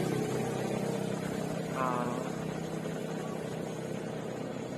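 A motor vehicle's engine running, slowly fading away, with a brief voice about two seconds in.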